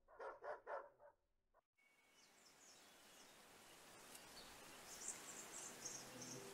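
Near silence: four short sounds fade out in the first second, then faint outdoor ambience builds up, with scattered high bird chirps.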